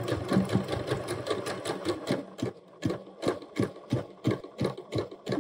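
Domestic sewing machine stitching a waistband seam, backstitching to lock the start. It begins with a quick run of stitches, then slows to separate needle strokes about three a second.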